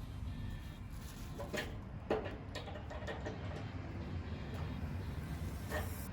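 A few sharp clicks and taps of hand tools against the griddle's metal fittings, heard over a steady low hum.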